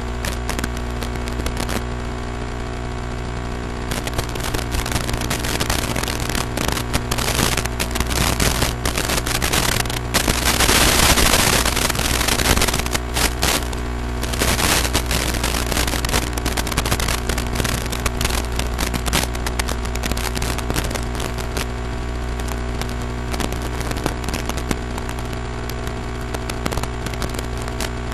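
Crackling static over a steady electrical hum in the audio of an analog FPV video recording. It swells into a loud hiss for a few seconds about ten seconds in.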